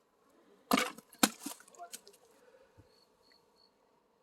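An axe striking a log of firewood about three-quarters of a second in, then a sharper knock half a second later and a few smaller wooden knocks.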